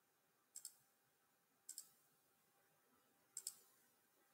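Computer mouse clicking three times, each click a quick pair of ticks, over near silence.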